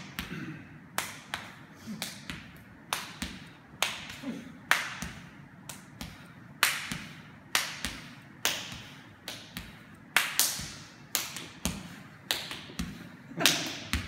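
Relaxed, loose-fisted punches landing on a person's clothed torso: short slapping thuds at about two a second in a steady beat. Each strike copies the sound of the one before it.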